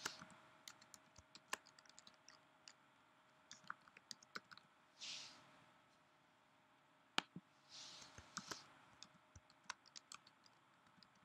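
Computer keyboard keystrokes and mouse clicks, faint: scattered single clicks with short runs of typing, and two soft hisses in between.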